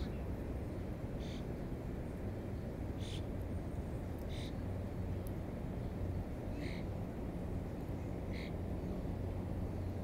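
A bird gives about five short calls, one every second or two, over a steady low background rumble.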